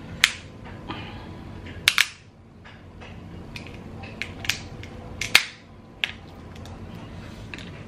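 Cooked Dungeness crab leg shells being cracked and snapped apart by hand: a string of sharp, irregular cracks. The loudest come near the start, a double snap about two seconds in, and one a little past the middle.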